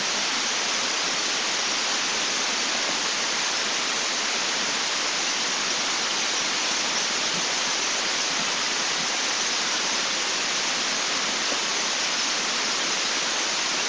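Steady, even hiss of a webcam microphone's noise floor, with no other sound.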